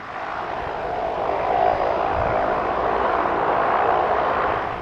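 De Havilland Canada DHC-6-300 Twin Otter's two PT6A turboprop engines and propellers at takeoff power during the takeoff roll: a loud, steady propeller-and-turbine roar that rises quickly at the start and drops away near the end.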